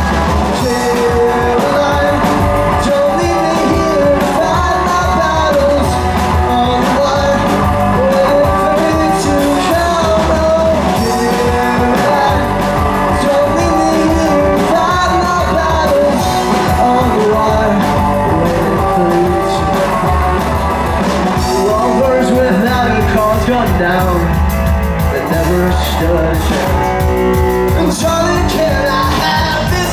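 Live rock band playing a song on drum kit and electric guitar, with a singer.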